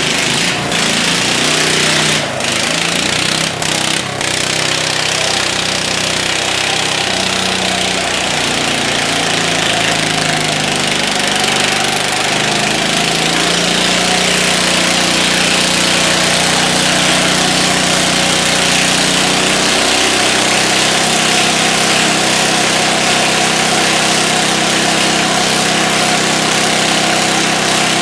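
Two Allis-Chalmers garden tractors' small engines running hard under load in a tug-of-war pull, a loud steady engine noise whose pitch wavers as they strain against each other. Their rear tyres spin on the concrete floor until they smoke. A few sharp knocks come about two to four seconds in.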